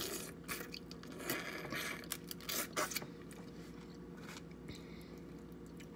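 King crab leg shells being cracked and scraped open by hand: a run of crunching, scraping crackles over the first three seconds or so, then a few scattered clicks.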